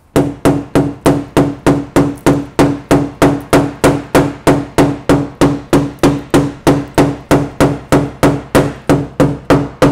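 Rubber-ball-tipped "jackhammer" knockdown tool tapping rapidly on a Honda Odyssey's dented fender, evenly spaced blows at about three or four a second, each with a short metallic ring. This is crown being knocked down while the dent is pushed from behind, in paintless dent repair.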